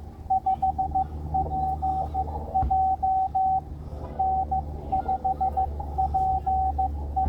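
Morse code (CW) tone from an amateur radio transceiver: a single steady pitch keyed on and off in dits and dahs, with a brief pause near the middle. A second, fainter signal at a lower pitch sits beneath it in the second half, over a steady low hum.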